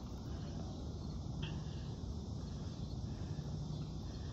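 Quiet outdoor ambience: a steady low hum and hiss, with one short chirp about a second and a half in.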